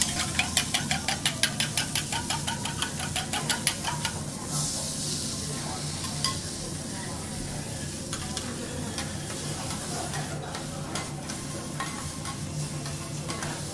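Metal teppanyaki spatulas striking an iron griddle in a rapid, even run of taps, about six a second, for roughly the first four seconds, over sliced bitter melon and vegetables sizzling. About four and a half seconds in the sizzling briefly swells. After that there are only occasional spatula clicks and scrapes over the steady sizzle.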